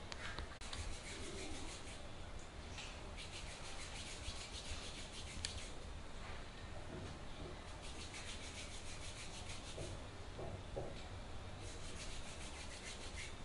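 Hand massage: a therapist's hands rubbing and kneading a client's hand and fingers, skin rubbing on skin in stretches lasting a few seconds each.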